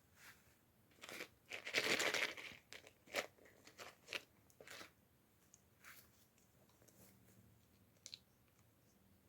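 Packaging being crinkled and torn open by hand: a loud stretch of crackling about a second in, then scattered smaller rustles and clicks.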